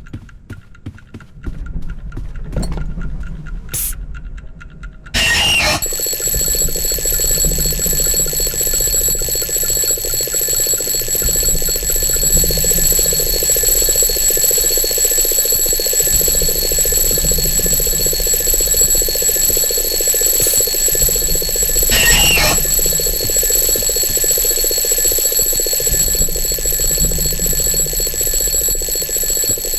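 Alarm clock going off: it starts suddenly about five seconds in and then rings steadily and shrilly without a break.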